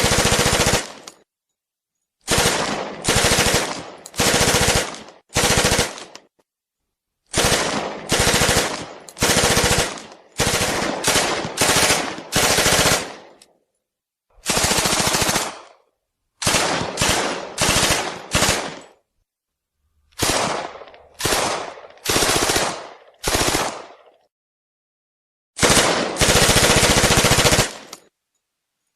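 Thompson 1928A1 submachine gun firing in fully automatic, a long series of short bursts of rapid shots with silent gaps between them, and one longer burst of about two seconds near the end.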